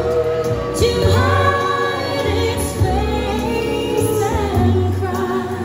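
A woman's voice singing a song with musical backing, a recorded show track played for an animatronic character.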